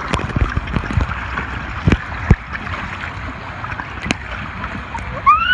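Water rushing and splashing steadily, with a few sharp low knocks. A high, arching shout comes right at the end.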